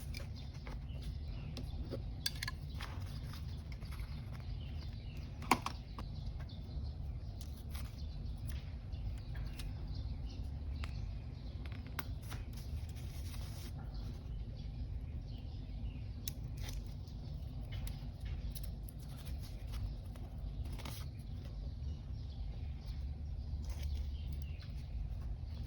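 Paper and stationery handling during journal collage work: soft rustles and scattered light clicks and taps, one sharper click about five and a half seconds in, over a steady low hum.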